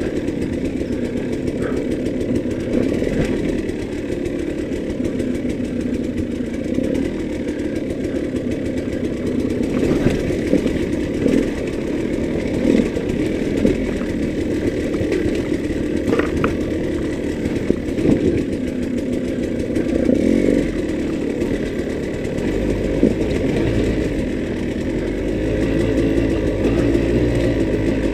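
2013 KTM 200 EXC dirt bike's single-cylinder two-stroke engine running under load at constantly changing revs while riding over rough, rocky trail, with a few sharp knocks along the way. It gets louder near the end.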